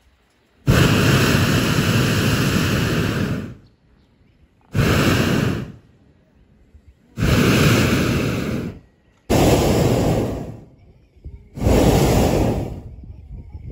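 Hot air balloon's propane burner firing in repeated blasts, five in all, each lasting one to three seconds and starting and stopping abruptly. The first blast is the longest.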